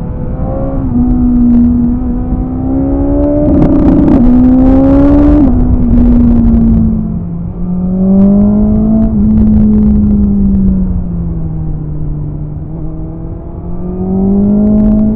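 BMW S1000RR's inline-four engine running on the road, its note climbing under throttle for the first few seconds and loudest there. The pitch drops suddenly about five and a half seconds in, then it falls and rises again twice as the revs come down and pick up.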